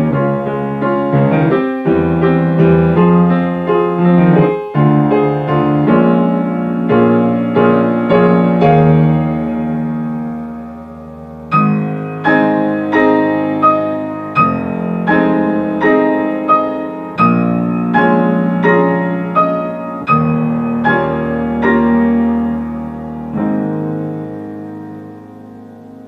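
Piano playing a graduation-song accompaniment with no voices. A flowing phrase dies away about ten seconds in, then chords are struck about every three-quarters of a second and fade toward the end.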